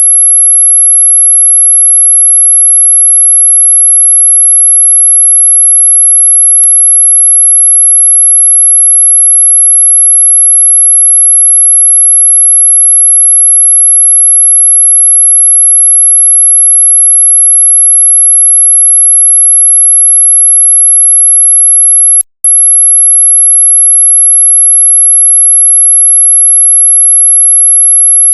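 A synthetic, very high-pitched steady pure tone, played as a mosquito-repelling 'ultrasonic' sound. It is loud and unchanging, with a faint click about six seconds in and a split-second break about two-thirds of the way through.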